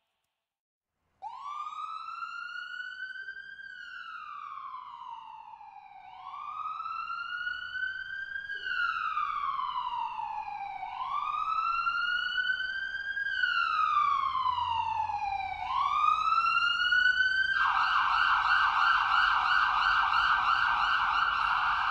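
Emergency-vehicle electronic siren sounding a slow wail, rising and falling about every five seconds and growing louder, then switching to a fast yelp near the end.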